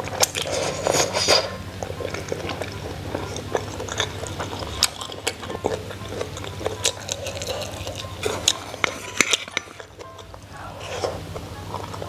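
Close-up eating sounds: slurping and chewing a mouthful from a spicy hot pot, with many short clicks of chopsticks against the bowl and pot.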